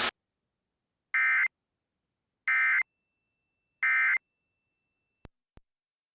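Three short bursts of EAS digital SAME data tones, about a second apart: the End of Message code sent after a tornado warning. Two faint clicks follow near the end.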